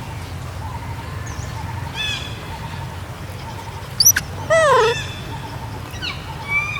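Young macaque calling: a few short, high-pitched calls that fall in pitch, the loudest about halfway through, over a steady low hum.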